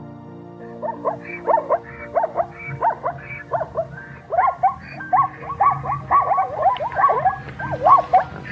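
An animal giving a rapid series of short, pitched calls, about three a second at first and coming faster and louder about four seconds in, over background music with steady held notes.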